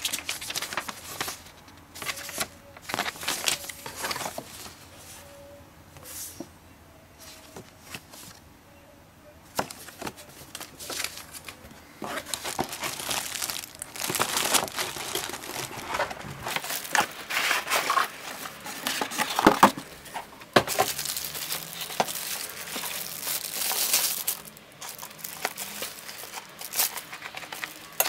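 Packaging being handled: paper instruction sheets rustling as they are turned, then plastic bags crinkling along with cardboard and a molded pulp insert, all in irregular rustles and small knocks. The crinkling grows denser and louder from about ten seconds in.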